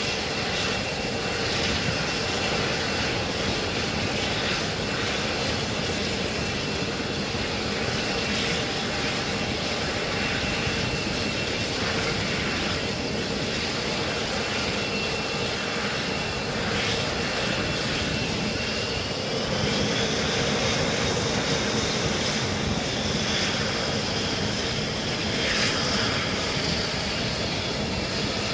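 Jet engines running on an aircraft carrier's flight deck: a steady high whine over a broad rush of engine and wind noise. About twenty seconds in, the whine rises in pitch, as the engine spools up.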